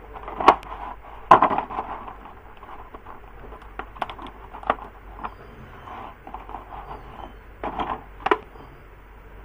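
Handling noise: a few sharp clicks and knocks, the loudest about a second in and a cluster near the end, with soft rustling between.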